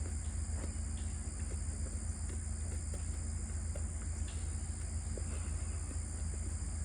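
Steady insect chorus, a continuous high-pitched trill, over a steady low hum, with a few faint clicks scattered through.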